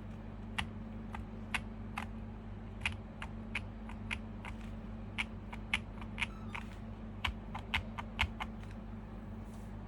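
Typing on a QK65 mechanical keyboard with stock Epsilon switches in a POM plate and GMK keycaps: an uneven run of keystroke clacks, sparse at first and thicker in the middle, stopping about a second before the end. A steady low hum runs underneath.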